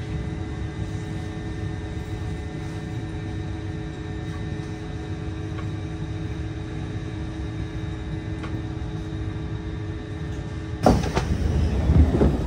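Kawasaki C151 metro train heard from inside the car, a steady hum and rumble with faint steady tones as it creeps along the platform. Near the end a sudden loud clunk starts a louder rumbling stretch.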